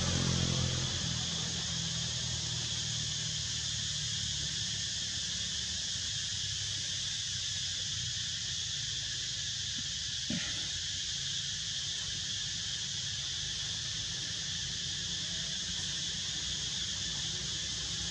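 Steady insect chorus, an even high-pitched buzz, over a low steady hum, with one brief click about ten seconds in.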